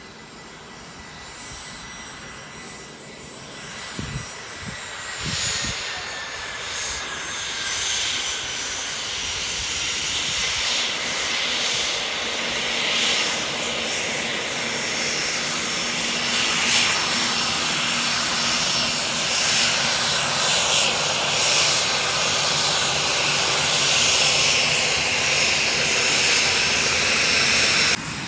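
The twin Pratt & Whitney Canada PW615F turbofans of a Cessna 510 Citation Mustang business jet whine and hiss as the jet taxis toward the microphone, growing steadily louder. Its high whine eases down in pitch over the first several seconds. A couple of brief low thumps come about four seconds in.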